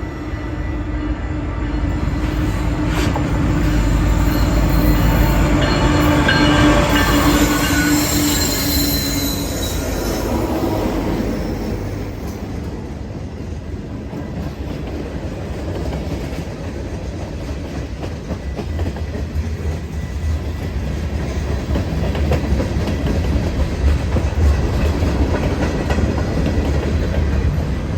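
Freight train passing: the diesel locomotives' engines run loud for about the first ten seconds, with a high squeal from the steel wheels on the rails partway through. The freight cars then roll by in a steady lower rumble.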